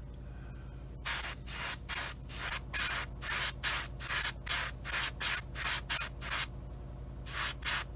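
Gravity-feed airbrush spraying paint onto a small plastic model part in short, quick trigger bursts of hiss, about three a second. The bursts start about a second in and pause briefly near the end before starting again.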